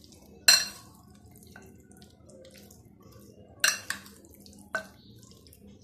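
Metal spoon stirring chicken pieces in a thick yogurt-and-spice marinade in a glass bowl, with sharp clinks of the spoon against the glass: the loudest about half a second in, two more roughly three and four seconds later.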